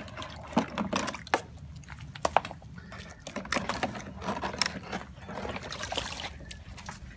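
Water pouring and splashing in a plastic tub as ice is handled in it, with scattered light knocks and clicks.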